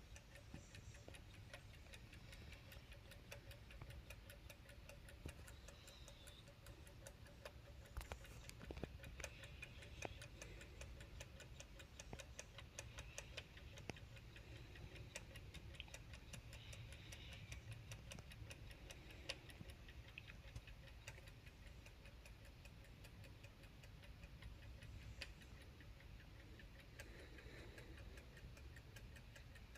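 Soviet Yantar electromechanical wall clock ticking faintly and evenly, its movement driven by the electronic board and induction coil.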